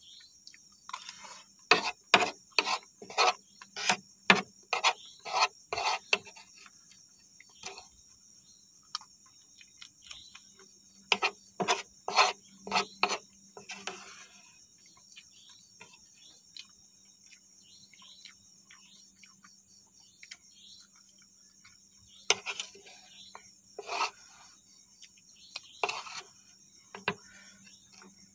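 Steady chirring of crickets, with three runs of short, quick eating sounds — a metal spoon scraping noodle scraps off a wooden board and chewing — each lasting a few seconds.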